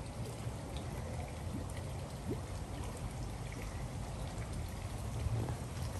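Pond water splashing and trickling as red-tailed catfish swirl at the surface for a hand-held piece of fish, over a steady low rumble.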